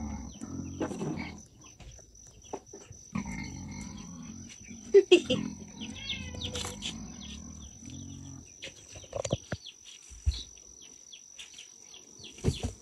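Pigs grunting and squealing in bursts, the loudest call about five seconds in. Under them a large knife scrapes and knocks on a rabbit carcass laid on a wooden board, with sharper knocks in the second half.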